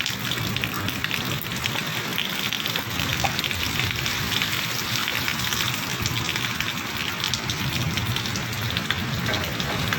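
Heavy monsoon rain pouring steadily, thick with fine drop ticks on surfaces.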